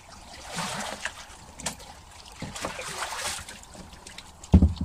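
Carp and water tipped from a plastic tub splashing into a water-filled holding tank, in two surges about a second in and about three seconds in, with a low thump near the end as the loudest sound.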